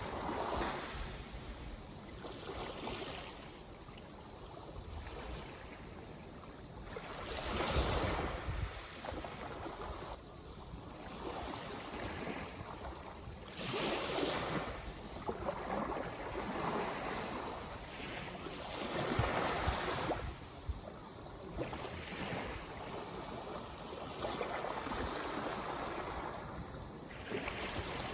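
Small sea waves breaking and washing up the beach. Each surge rises and falls away, about every five or six seconds.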